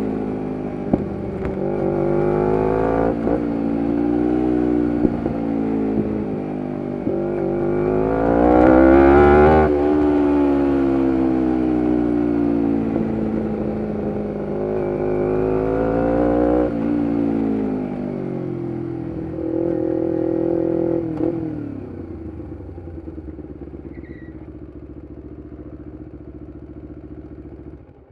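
2011 Kawasaki Ninja 250R's parallel-twin engine through a full Graves race exhaust, revving up and down through the gears: rising pitch broken by sudden drops at the shifts. It then eases off to a low, steady run that fades away near the end.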